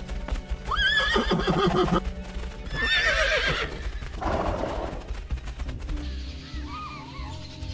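Horses neighing: two shrill, wavering whinnies, about a second in and again around three seconds, over hoofbeats.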